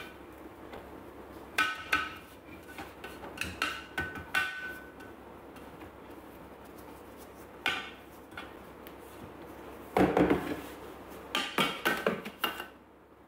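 Thermomix spatula scraping and knocking inside the stainless-steel mixing bowl, the bowl ringing briefly at some of the knocks. About ten seconds in comes the loudest clatter, as the metal bowl is set back into the Thermomix base.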